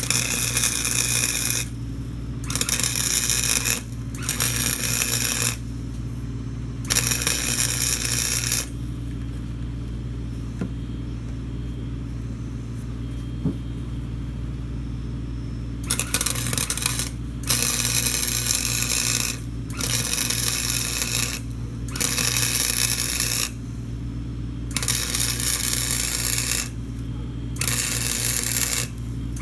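Arc welding a steel patch onto a lawnmower deck in short stitch beads: about ten crackling bursts of one to two seconds each, with brief gaps and one longer pause in the middle. A steady low hum runs underneath.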